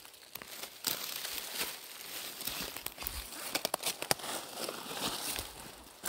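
Footsteps in dry fallen leaves, a crisp crunching and crackling with irregular sharp crackles.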